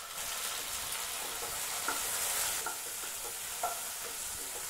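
Freshly added tomato pieces, shallots, garlic and chillies sizzling in hot oil in a frying pan while a wooden spatula stirs them, with a few light knocks among the steady sizzle.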